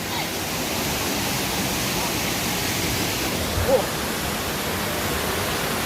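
Steady rush of a waterfall's falling water, an even noise with no break. A short call, perhaps a distant voice, rises and falls briefly about halfway through.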